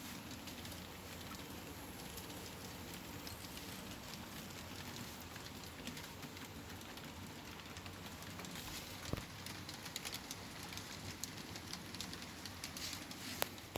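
HO scale model trains rolling along the track: a faint, steady rolling noise with crackling ticks from the wheels, and two sharp clicks, one about nine seconds in and one near the end.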